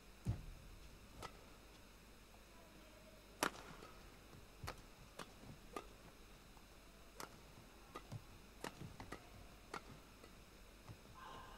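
Badminton rally: racket strikes on a feather shuttlecock, sharp clicks coming roughly once a second, the loudest about a third of a second in and again at about three and a half seconds.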